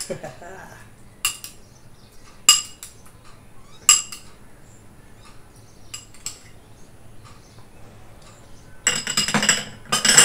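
Metal spoon clinking and scraping against amber glass serving bowls and a plate while beef curry is spooned out: sharp single clinks every second or two, then a busier clatter of taps near the end.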